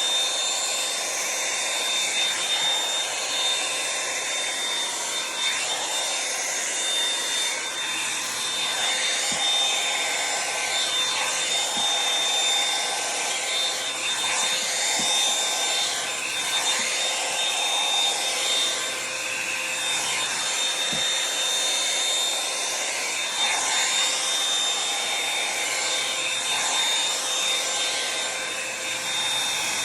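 Revlon One-Step hot-air brush dryer running steadily: an even rush of blown air with a thin high whine from its motor, the air noise shifting a little as it moves.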